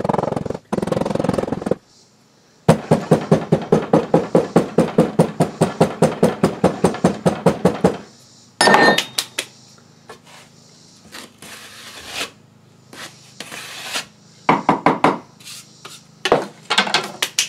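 Hand rammer tamping foundry sand into a wooden mold flask: a fast run of thuds, about five a second, lasting several seconds, then one sharper clink with a brief ring. Near the end come a few scattered knocks.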